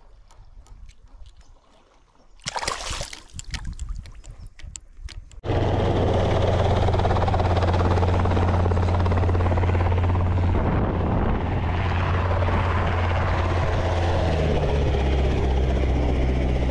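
Brief splashing in shallow water, then a light helicopter's engine and rotor running on the ground, loud and steady with a deep hum. The sound comes in suddenly about five seconds in, and its hum shifts in pitch near the end.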